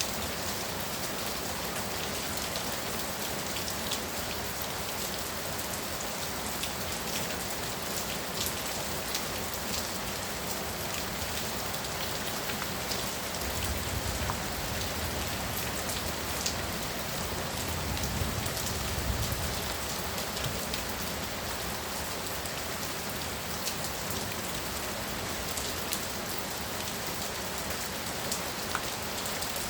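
Heavy rain pouring steadily, with drops ticking sharply on a hard surface. A low rumble comes twice in the middle, about halfway through and again a few seconds later.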